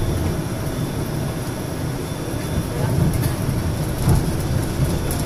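Steady low engine and road rumble inside a moving tour bus's cabin as it drives along.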